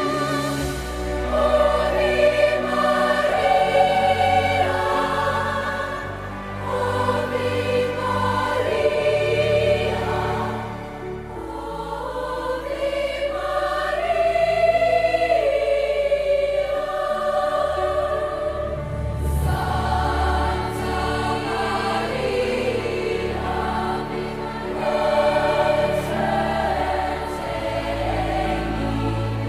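Choir singing in several voice parts, with sustained held chords that shift from one to the next.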